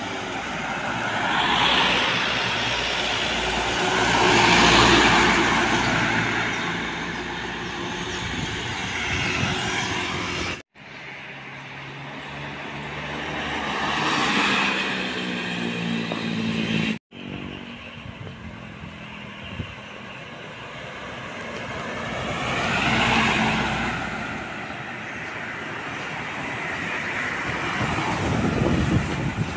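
Road vehicles passing close by on a highway. Three separate pass-bys each build to a peak and fade, with engine and tyre noise. The sound is broken twice by sudden cuts.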